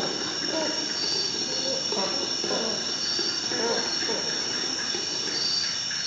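Faint, distant voices over a steady high-pitched whine, which swells briefly a few times.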